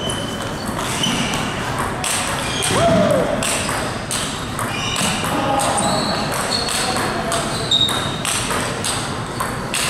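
Table tennis ball clicking back and forth off rackets and the table in a fast rally, a hit about every half second, some hits leaving a short high ping.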